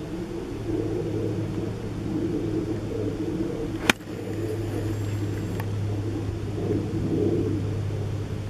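A lob wedge striking a golf ball once, a single sharp click about four seconds in, over a steady low rumble.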